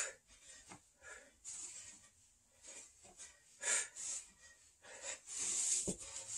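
A man breathing hard while exercising: a series of short, sharp breaths every second or so, with a longer breath near the end.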